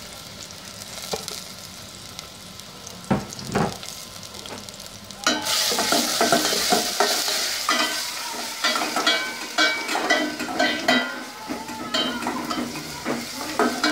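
Crushed ginger and garlic sizzling in oil in a stainless steel pot, with a metal spoon scraping and clinking against the pot as they are stirred. The sizzle becomes suddenly loud about five seconds in, and frequent clinks follow.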